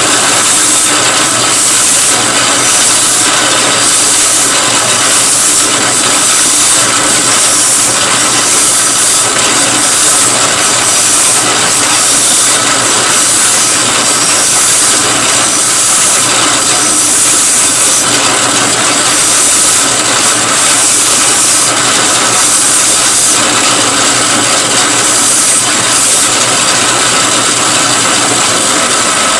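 Drill press spinning a 120-grit sanding mop while the edge of a wooden coaster is held against it: a steady motor hum under a loud abrasive sanding hiss that swells and eases in regular pulses.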